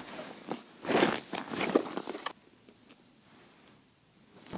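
Crunching and scuffing of boots and gear in snow for about two seconds, then it goes almost quiet.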